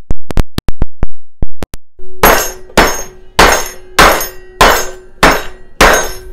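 The bottom of a frying pan pounding a beef tenderloin wrapped in cling film on a wooden cutting board, flattening the steak: a quick run of sharp clicks at first, then seven heavy blows about every 0.6 s, each leaving the pan ringing.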